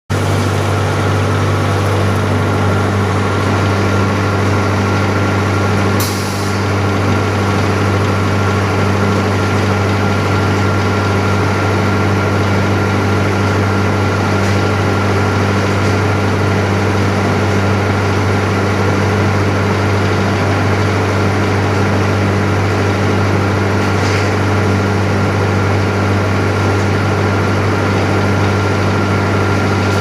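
Thyristor-based medium-frequency induction melting furnace running under power: a loud, steady electrical hum with a thin, steady higher tone above it. A brief knock comes about six seconds in.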